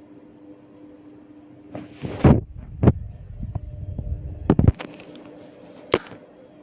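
Hair cracking: locks of hair twisted and tugged at the scalp give sharp cracking pops over a rustling rub of hair and hands. There are two loud pops in the first half, a quick pair, then a last single pop near the end.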